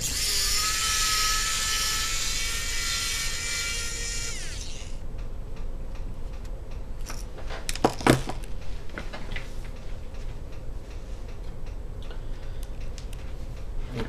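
Small electric screwdriver motor whining for about four and a half seconds as it backs out a screw holding the laptop motherboard, dropping in pitch as it stops. Two sharp knocks about eight seconds in.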